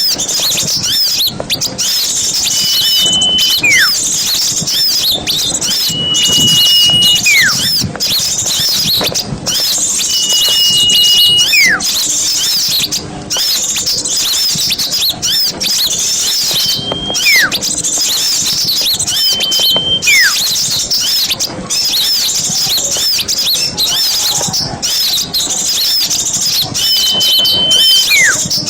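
Small songbirds singing in a dense, continuous high twittering chatter. Every few seconds a whistled call recurs: a held note, then a falling slur. This is a looped birdsong recording used as masteran, song played for training cage birds.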